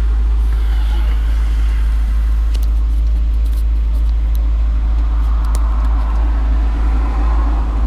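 Car-audio subwoofers playing a very loud, steady low bass tone for an SPL meter reading, with buzzing from the car and a few sharp rattle ticks.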